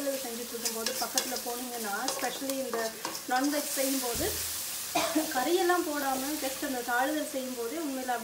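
A spatula stirring and scraping chopped onions and chillies frying in oil in an aluminium kadai, with a steady sizzle, repeated clicks of the spatula against the pan and a wavering scraping tone that rises and falls with each stroke.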